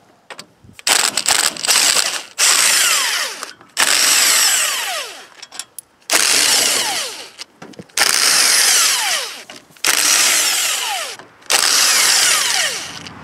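Cordless impact wrench running bolts out of a small engine's crankcase cover in a string of bursts, most a second or two long, its pitch falling as each burst winds down.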